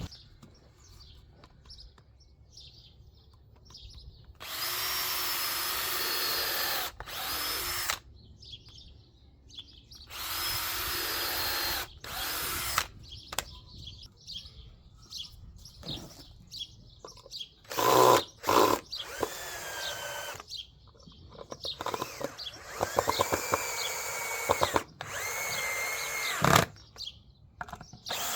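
Cordless drill working into wood in a series of short runs of one to two seconds each, stopping and starting between holes, with a few knocks in between.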